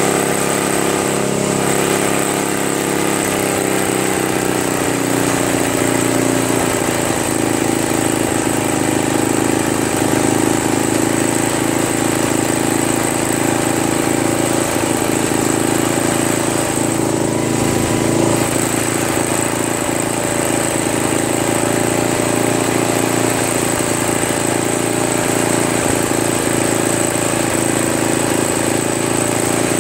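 Tecumseh engine of a Craftsman 522 two-stage snowblower running steadily off choke after a carburetor clean. Its pitch shifts over the first few seconds, then holds steady.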